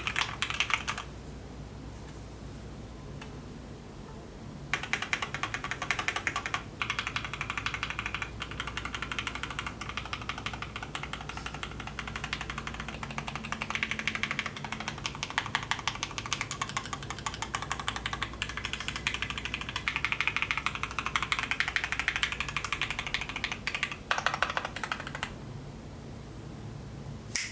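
Custom mechanical keyboard being typed on fast, a dense stream of key clacks. It pauses for a few seconds near the start and again near the end.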